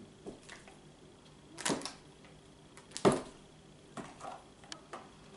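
Scattered handling noises while preparing food: brief rustles and light knocks, two louder ones about a second and a half and three seconds in, then a few small clicks.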